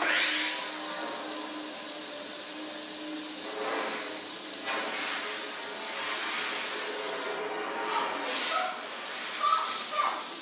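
Water running from a kitchen tap, a steady rushing hiss that starts suddenly, with a few light knocks near the end.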